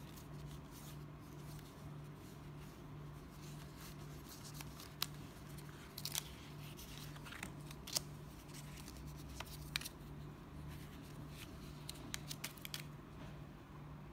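Leather wallet, banknotes and cards being handled: scattered sharp clicks and crinkles, most of them from about four seconds in, over a steady low hum.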